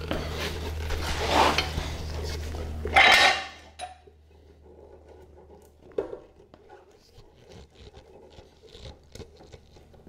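Metal parts of a VW swing-axle rear suspension being handled. There are about three seconds of rough scraping and rubbing ending in a loud knock, then quieter scattered metallic clicks and clinks.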